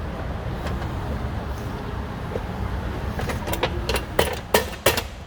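Sharp metal clicks and clacks, several in quick succession over the last two seconds, as a panic bar exit device is worked onto the door and lined up with the rim lock's tailpiece, over a steady low rumble.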